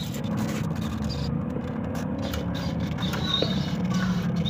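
Steady low engine rumble, with light rustling and small clicks from plant stems and gravel being handled.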